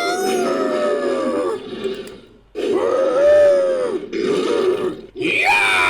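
Creature sound effect made with a human voice: a series of drawn-out vocal calls, each rising and then falling in pitch, with brief breaks between them.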